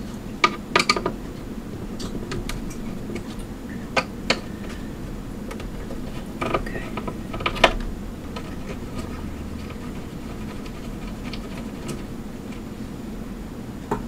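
A screwdriver working small screws out of a computer's metal chassis: scattered sharp metal clicks and taps, grouped about half a second in, around four seconds and again between six and eight seconds, as the screwdriver tip catches and loose screws are set down on the metal.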